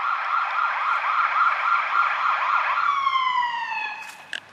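Emergency vehicle siren sounding a fast rising-and-falling yelp, then gliding down in pitch about three seconds in and dying away, announcing Santa's arrival in the neighbourhood. A short knock follows near the end.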